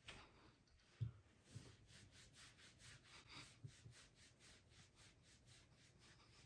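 Near silence in a small room, with a few faint soft thumps and light rubbing.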